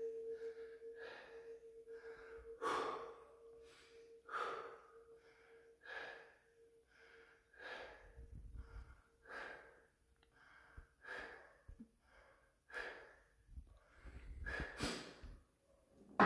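A man's heavy, strained breathing, short breaths in and out repeating about every second, as he holds a 732.5 kg barbell across his shoulders. A faint steady ringing tone fades away over the first ten seconds or so.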